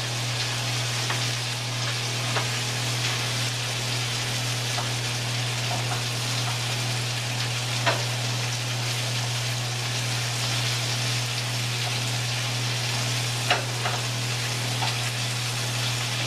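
Sea scallops searing in butter in a stainless steel sauté pan, their second side browning after being turned: a steady sizzle, with a few light clicks of metal tongs against the pan.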